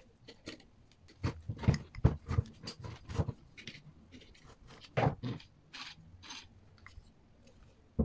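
Irregular light metallic clicks, taps and scrapes from handling a washing machine motor's metal housing, with steel pliers working against the casing and mounting bracket.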